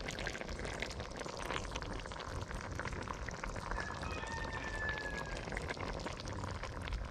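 Pot of curry crab bubbling quietly, with a fine crackle running through it. A faint high whistle comes about four seconds in.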